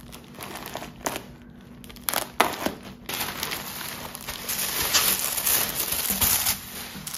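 A plastic poly mailer bag crinkling and rustling as it is poked open with a pen and torn, and its bubble-wrapped contents are pulled out. A few sharp snaps come in the first three seconds, then a steady run of crinkling that is loudest about two-thirds of the way through.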